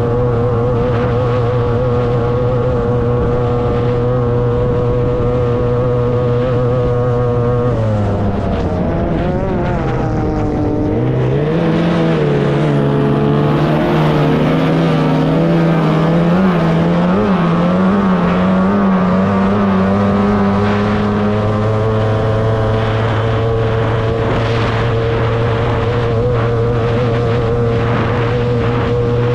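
30 hp two-cylinder racing outboard on a tunnel-hull powerboat running at a steady high pitch; about eight seconds in the revs drop and waver through a turn, then climb back and hold steady again near the end.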